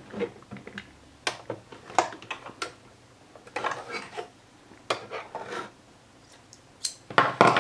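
Scattered light clicks, taps and rustles of handling at a sewing machine: linen fabric slid out from under the presser foot and metal scissors handled at the needle plate to cut the threads. A louder cluster of clicks comes near the end.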